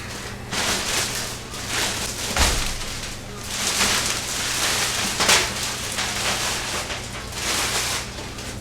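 Plastic and packing material rustling and crinkling in irregular surges as a large PC tower case is handled, with a soft thud about two and a half seconds in.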